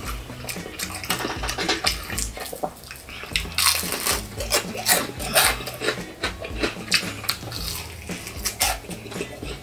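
Close-miked eating of fried chicken: crisp crunching of the fried crust and wet chewing and smacking, with a thick run of loud crunches around the middle.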